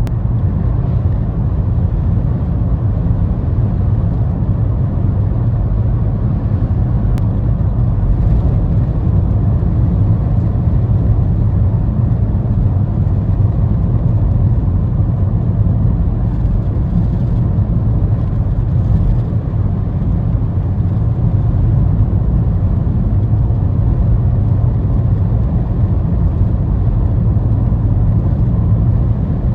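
Steady low road rumble heard from inside a moving car.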